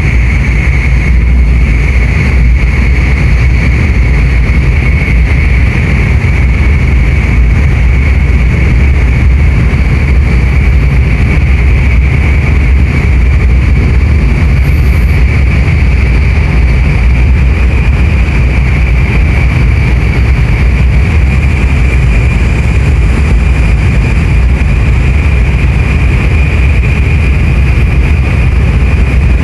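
Steady running noise of an N700S Shinkansen train at speed, heard from inside the car: a heavy low rumble with a thin, steady high whine above it.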